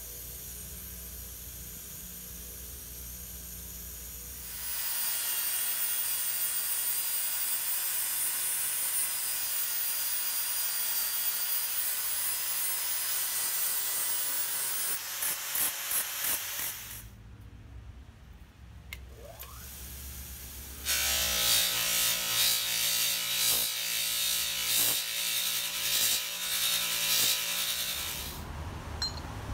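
Grinders working the steel face of a small anvil to dress it to a convex radius. A motor hums at first, then an angle grinder's abrasive wheel grinds the steel in a long, loud, high-pitched pass. After a short lull, a second grinding pass starts about three-quarters of the way in.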